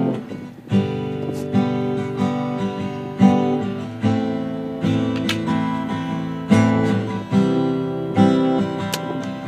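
Background music: a strummed guitar playing held chords, struck at an even pace a little more than once a second.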